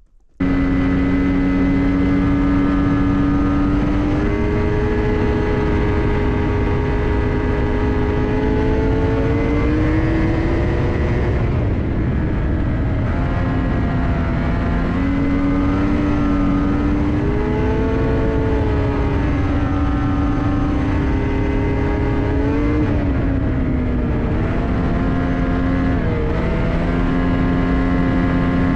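2024 Ski-Doo MXZ X-RS 850 E-TEC snowmobile under way, its two-stroke twin engine running steadily near 5200 rpm, with a whining note that drifts up and down as the sled's speed changes. The sound cuts in suddenly just after the start.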